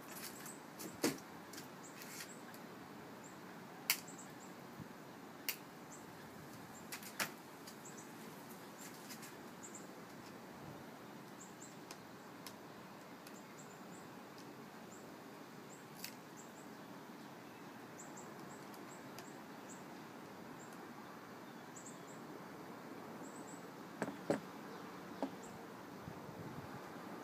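Scattered sharp clicks and taps of glass pieces and pliers being handled on a wooden mosaic board, a few in the first seconds, then a lull, then a small cluster near the end. Faint high chirps sound in the background throughout.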